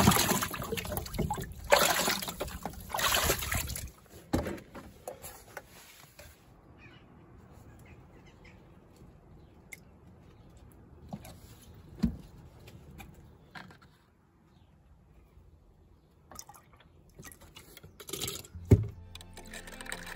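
Rainwater splashing and gurgling as a plastic watering can is plunged into a water tub and filled, loud for the first four seconds. Then it goes quiet apart from a few light knocks, with a thump and water swirling in the can near the end.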